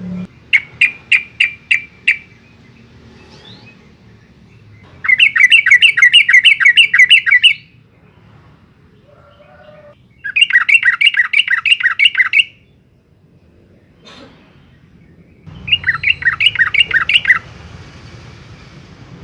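Yellow-vented bulbul (trucukan) singing in four loud bursts of rapid, bubbly repeated notes, a few seconds apart.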